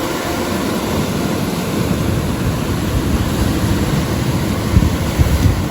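Wind buffeting the microphone over the steady rush of ocean surf, with a few stronger gusts near the end.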